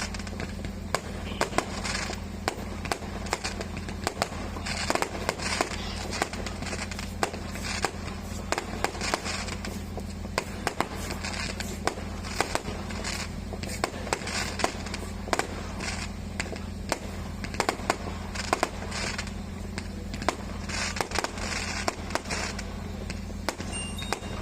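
A continuous barrage of firecrackers and fireworks: many sharp pops and bangs at an irregular, rapid rate, over a steady low hum.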